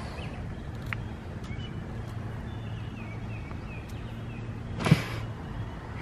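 Steady low hum of an idling engine, with a few faint high chirps. A single sharp knock comes about five seconds in, and the hum stops just after it.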